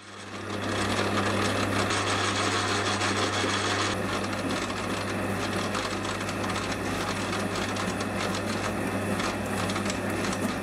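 Metal lathe turning at about 300 RPM while a hand-ground high-speed-steel trepanning tool cuts a circular groove into the face of an aluminium workpiece: a steady motor hum under a continuous cutting hiss, coming in over the first second. The cut is running smoothly.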